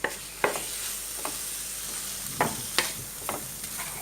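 Shrimp sizzling in butter in a frying pan, with a steady hiss. A utensil scrapes and taps the pan every half second or so as they are stirred.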